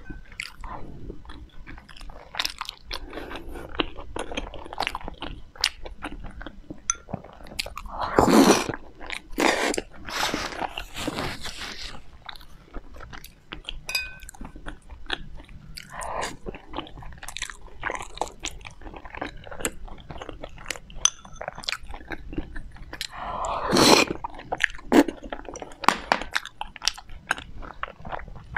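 Close-miked eating: a person biting and chewing food, with crunchy clicks throughout. Twice there is a louder breathy rush, about eight seconds in and again near 24 seconds.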